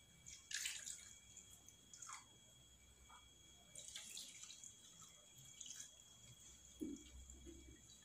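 Faint, scattered drips and small splashes of water, about half a dozen, as a plastic bucket of water is handled, with a soft knock about seven seconds in.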